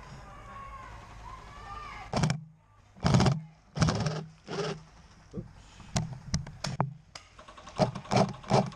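Airsoft guns firing on a game field: short bursts and single shots in quick succession, starting about two seconds in after a steady background hum.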